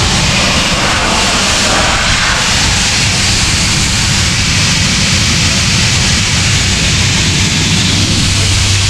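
Compressed-air blowpipe blasting dust off a roof with a loud, steady hiss, over the steady low drone of a diesel air compressor running.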